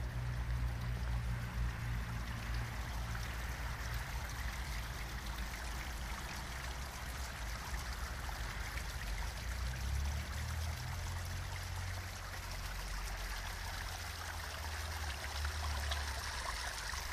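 Water running and splashing over the stones of a garden rockery fountain and its stream channel: a steady rush, with a low rumble underneath that comes and goes.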